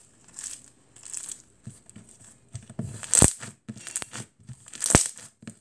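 Floam (slime packed with foam beads) being squished and kneaded by hand, crackling and crunching in irregular bursts, with two loud sharp pops about three and five seconds in.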